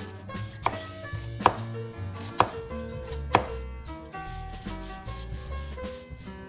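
Kitchen knife chopping food on a cutting board: four sharp, loud strokes about a second apart, then lighter, quicker cuts.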